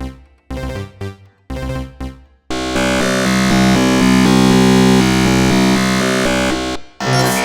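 Dark MIDI synthesizer ringtone music. It opens with short chord stabs about once a second, each dying away. About two and a half seconds in, a loud sustained section of layered synth tones takes over; it drops out briefly near the end before another loud passage starts.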